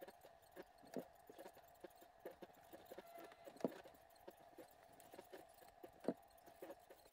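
Near silence with faint, irregular clicks and a few soft knocks, the loudest about a second in, a little past halfway and near the end, as a person wrapped in a blanket kneels and goes down onto a prayer mat on a wooden floor. A faint steady hum lies under it.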